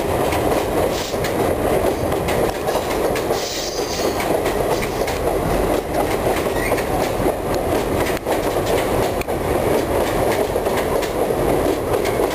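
Empty freight wagons, mostly mineral hoppers, rolling past at close range: a steady, loud rolling noise of wheels on rail, with occasional sharp clicks.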